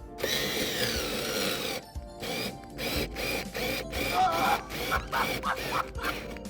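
Background music, with a power drill running for about a second and a half near the start, its whine falling in pitch as it works.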